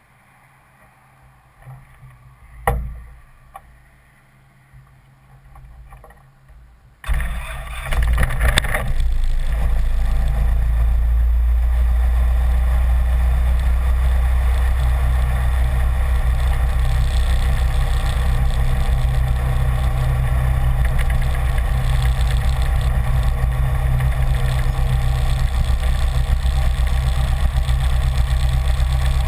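BD-4 light airplane's piston engine starting about seven seconds in, catching with a brief stutter and then running steadily at idle with a loud low drone. Before the start it is quiet apart from a single thump about three seconds in.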